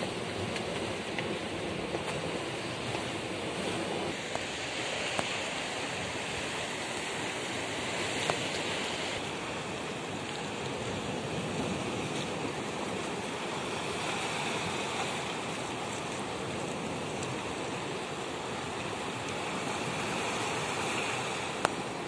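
Mediterranean Sea waves washing onto a rocky shore: a steady hiss of surf that swells and eases every few seconds, with a few faint ticks.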